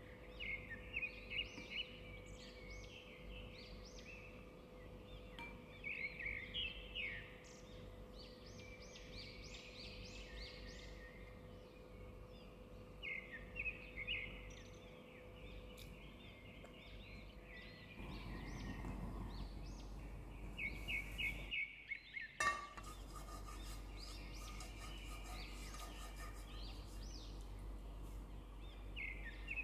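Small birds chirping in short repeated bursts, over a steady background hiss with a low hum in the first half.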